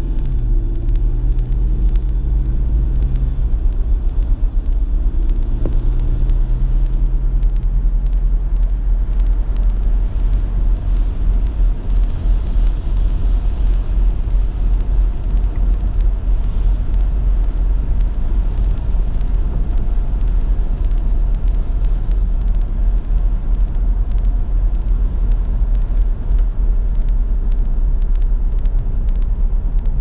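Car driving at steady speed, heard from inside the cabin: a continuous low rumble of road and engine noise, with a steady low engine hum over the first eight seconds or so.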